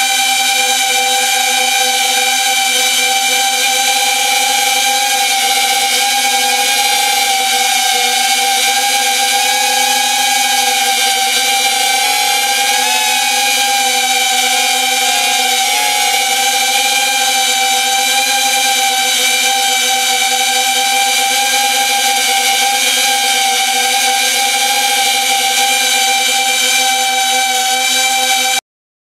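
FPV quadcopter's motors and propellers whining steadily, recorded on board, the pitch wavering slightly with throttle. The whine stops abruptly near the end.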